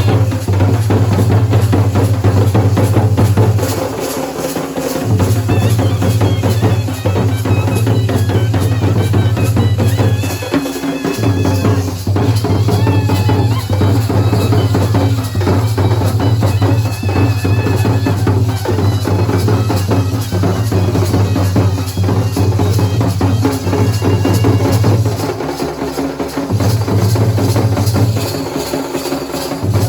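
Dhol and nagada drums played in fast, dense rolls, with a deep continuous boom underneath that breaks off briefly about four seconds in, near ten seconds and a few seconds before the end. A high melody line runs over the drumming.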